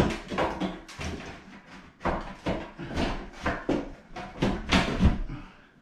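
Irregular knocks, clatter and scraping as a Panasonic WhisperFit EZ retrofit exhaust fan is pushed by hand up into its ceiling housing, with a sharper knock about five seconds in.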